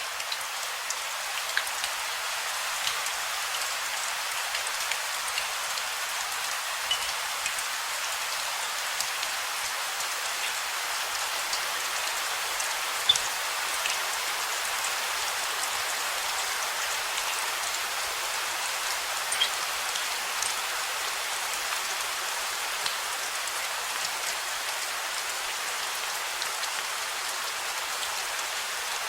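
Steady rain falling on hard surfaces: an even hiss sprinkled with small drop ticks, with a couple of louder drips about halfway through.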